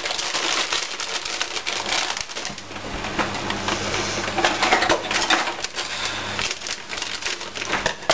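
Plastic packet of dried pasta being handled and shaken: the plastic crinkles continuously and the hard pasta rattles inside with many small clicks.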